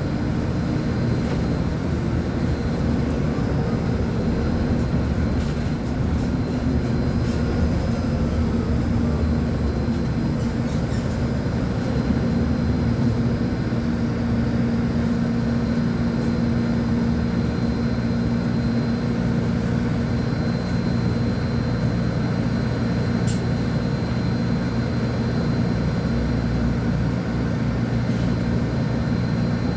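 Volvo B10M articulated bus's six-cylinder diesel engine running steadily, its low drone shifting slightly in pitch as the bus goes.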